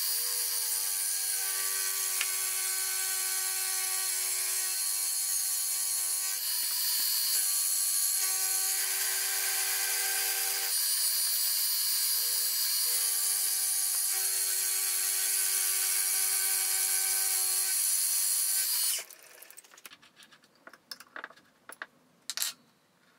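Milling machine spindle running an end mill that cuts along the side face of a small vise's fixed jaw, truing it square to the top: a steady whine with cutting hiss that shifts slightly in pitch now and then. It stops about 19 seconds in, followed by a few light clicks.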